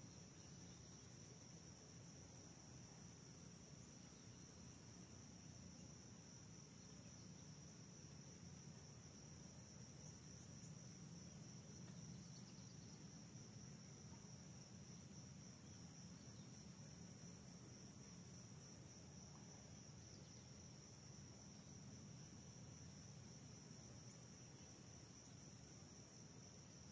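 Faint, steady, high-pitched insect chorus in two shrill bands, swelling and easing every several seconds, over a low background rumble.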